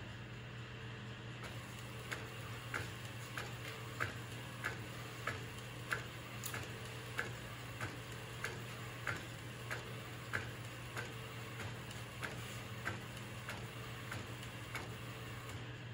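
Epson SC-P405 DTF printer printing onto roll film, with a steady run of sharp clicks, about three every two seconds, as the print-head carriage shuttles across, over a steady low hum.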